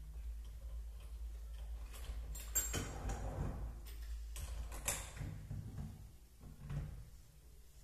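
Hands handling a small digital scale and sinew strands at a workbench: light rustles and clicks, the loudest a few seconds in and again about five seconds in, over a steady low hum.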